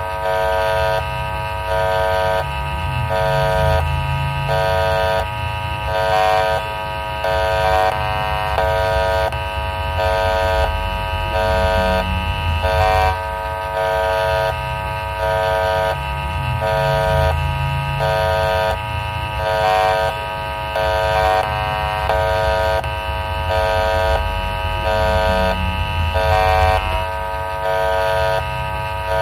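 Indonesian railway level-crossing alarm sounding, an electronic tone pattern that repeats about every 1.2 seconds, over a low rumble that swells and fades.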